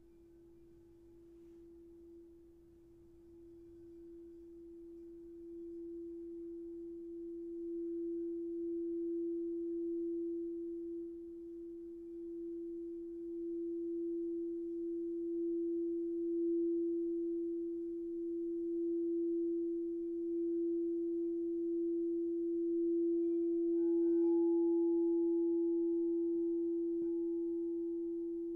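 Crystal singing bowl played around the rim, sounding a single pure sustained tone that swells up over the first several seconds and then wavers gently in loudness. Near the end a light tap is heard and a faint higher tone joins in.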